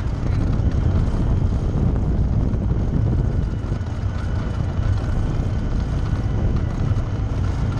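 Side-by-side UTV's engine and drivetrain running steadily as it drives along a dirt trail.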